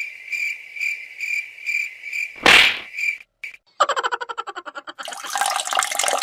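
Cricket chirping, an even high chirp about three times a second, cut off about two and a half seconds in by a loud, short whoosh. A fast rattling run of clicks follows, then a rushing, water-like noise near the end.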